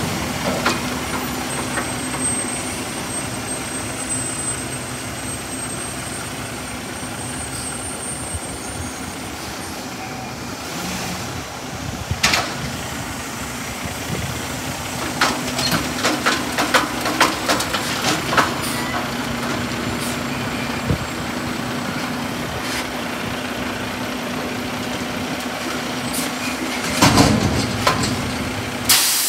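Mack MRU front-loader garbage truck with a Heil Half Pack body, its diesel running with a steady hum. Sharp metal clanks and rattles come in the middle, and a loud burst of air hiss comes near the end.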